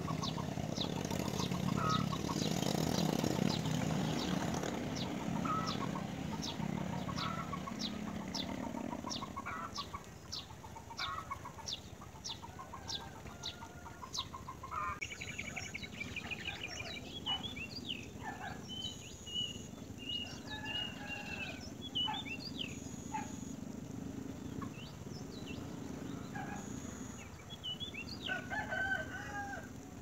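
Outdoor birdsong: one bird repeats a short, high, falling note about twice a second for the first half, then other birds give scattered varied chirps and warbles, over a low steady background hum.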